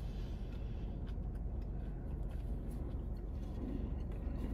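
Low, steady rumble inside a parked car, with a few faint scattered clicks.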